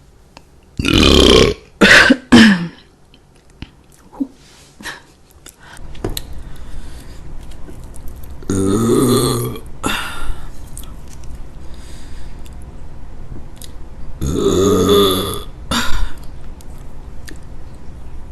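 A woman burping loudly: one long burp about a second in with two short ones right after it, then two more long burps about eight and fourteen seconds in, and a short one near the end.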